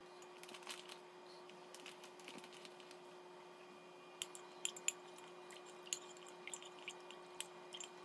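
Faint, scattered clicks and taps of a metal spoon against a ceramic mug and a plastic bag as potato starch is spooned out and stirred into water for a starch slurry, over a steady low hum.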